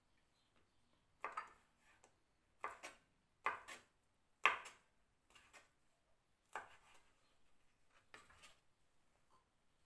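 Kitchen knife chopping cooked prawns on a wooden cutting board: a dozen or so irregular knocks of the blade on the board, often in quick pairs.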